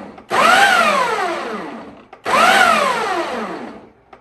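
Ninja blender motor pulsed twice, each burst lasting under two seconds, grinding chunks of raw halibut into a coarse mince. Each pulse starts suddenly, its whine climbs briefly and then falls steadily as the blade slows, and a third pulse begins at the very end.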